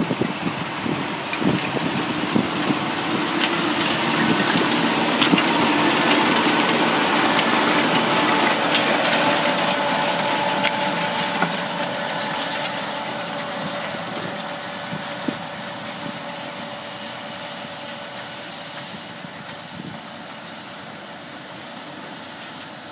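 A John Deere tractor's engine working in a field, growing louder to a peak about six to ten seconds in and then fading steadily as it moves away. Sharp knocks come in the first few seconds.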